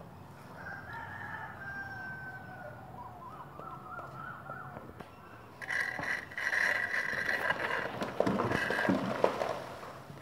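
A rooster crowing: a long, strong call from about six to eight seconds in, with fainter wavering calls in the first few seconds.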